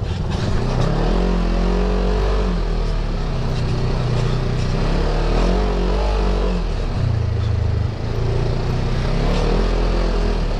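Off-road side-by-side's engine running under load while driving, its pitch rising and falling several times as the throttle is worked.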